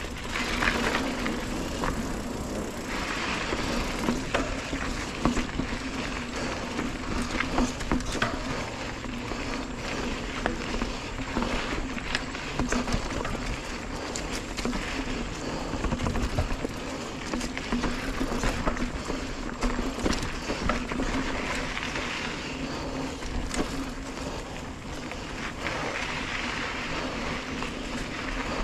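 Mountain bike ridden fast along a rough dirt singletrack: knobby tyres rolling over the dirt with a steady drone, and frequent short rattles and knocks as the bike goes over roots and bumps.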